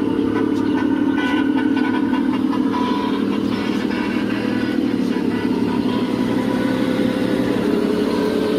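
Steady, loud mechanical rumbling, much like a running engine, that starts and cuts off abruptly.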